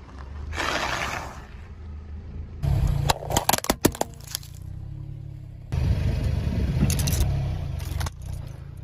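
A car tyre rolling over and crushing brittle objects, heard over the low rumble of the car: a quick run of sharp cracks and snaps about three seconds in, then a few more snaps near the end.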